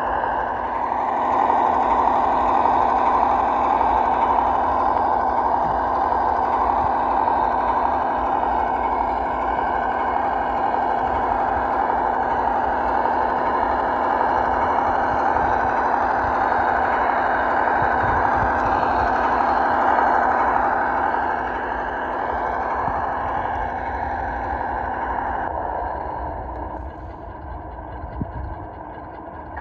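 Simulated ZIL-131 V8 engine sound from a 1:12 radio-controlled model truck's sound module, running steadily, then dropping to a quieter level near the end.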